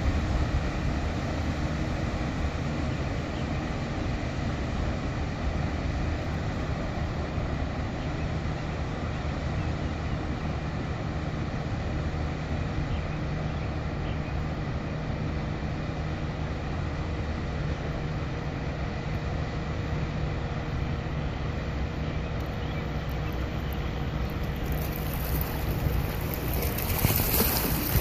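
Steady low rumble of a sternwheel paddleboat under way, heard across open water with wind noise on the microphone. Near the end a louder rush of wind and water noise builds.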